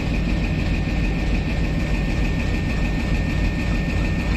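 An Indian Railways WDM-3D diesel-electric locomotive running steadily as it approaches slowly, a deep engine rumble with a steady high-pitched whine over it.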